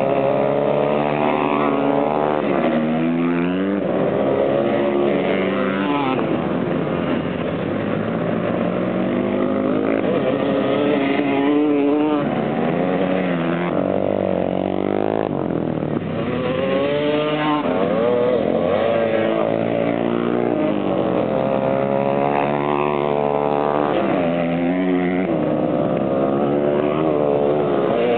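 Several dirt bike engines racing, overlapping one another, each pitch climbing under throttle and dropping away again over and over.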